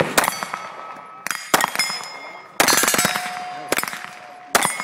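A string of handgun shots at round steel plate targets, fired in irregular bursts. Hits on the steel ring on with a clear metallic tone after the shots.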